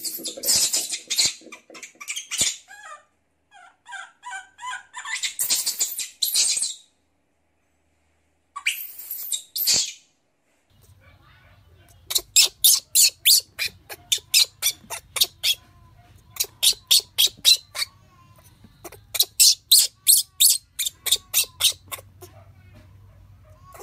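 Baby monkey cries: a few high, harsh screeches in the first seven seconds and again around nine seconds, then from about twelve seconds fast runs of short, high squeaks, about six a second, over a faint low hum.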